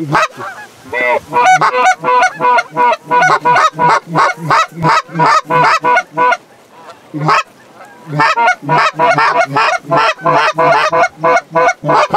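Goose calls blown hard and fast, imitating Canada geese: a rapid run of short honks and clucks, about four a second, pausing for about two seconds midway and then starting again, to turn a passing flock toward the decoys.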